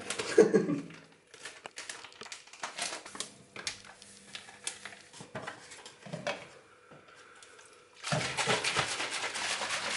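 Foil supplement sachets crinkled and torn open, with small plastic clicks as the powder is tipped into plastic shaker cups. About eight seconds in, a plastic shaker bottle is shaken hard, giving a dense, steady rattle and slosh.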